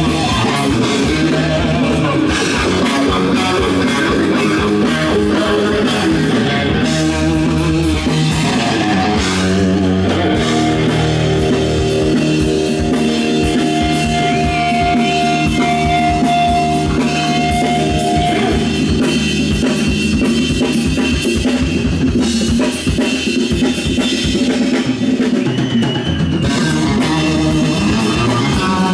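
Live rock band playing an instrumental passage: two electric guitars over a drum kit, loud and steady. About ten seconds in, a guitar holds one long note for several seconds.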